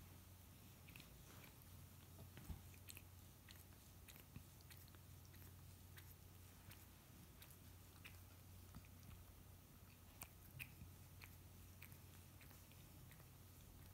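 A tabby cat licking its paw and washing its face: faint, irregular wet clicks of tongue and mouth, over a low steady hum.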